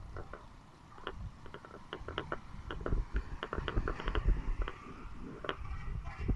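Uneven low rumbling gusts and scattered sharp clicks and knocks, typical of wind buffeting and handling noise on a handheld phone's microphone while riding along a road.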